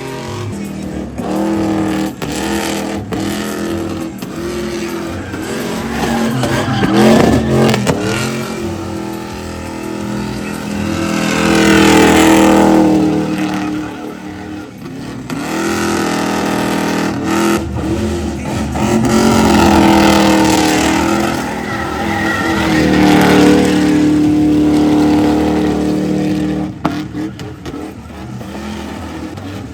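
A pickup truck's engine revving hard in a burnout, climbing and falling in pitch in several long pulls. Tire noise rises at the loudest peaks.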